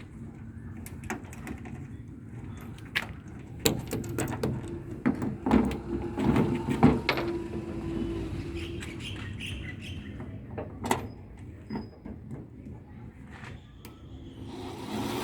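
Irregular clicks and knocks of a car door and its lock mechanism being worked on by hand, busiest in the middle, with a faint hum under the busiest stretch.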